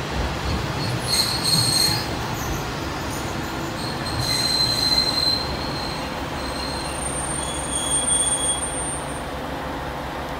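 A train moving through a station, its wheels squealing high on the rails about a second in and again around four seconds in over a steady running rumble, with a fainter squeal near the end.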